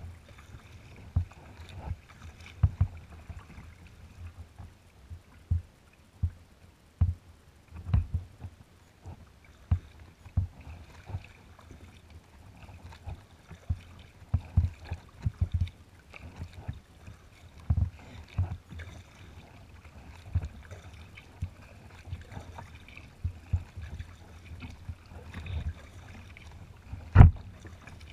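Red kayak moving through choppy water: small waves slap and splash against the bow, giving irregular low thumps with a hiss of water, and one louder thump near the end.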